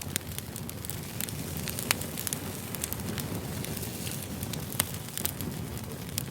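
Campfire burning: a steady low rush of flame with irregular sharp crackles and pops, two louder pops about two seconds in and near the five-second mark.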